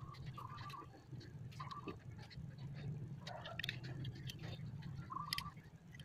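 Thin steel wire being threaded and wound around a bundle of metal umbrella ribs, with small clicks and ticks of wire on metal over a low steady hum. Short animal calls sound in the background several times.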